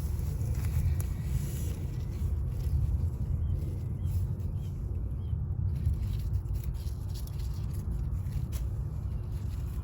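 Outdoor ambience: a steady low rumble, with a few faint short bird chirps about halfway through and occasional light clicks.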